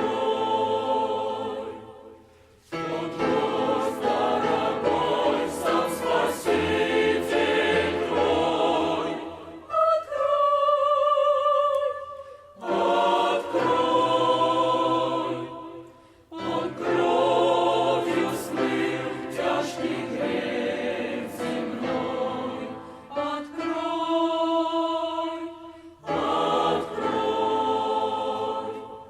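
Church choir singing a Russian hymn in phrases broken by short pauses, with a thinner, wavering passage about ten seconds in.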